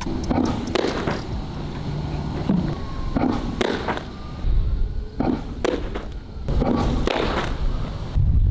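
Catching drills: a series of short sharp thuds and slaps, a baseball popping into a catcher's mitt and cleats scuffing the dirt, over a low wind rumble on the microphone.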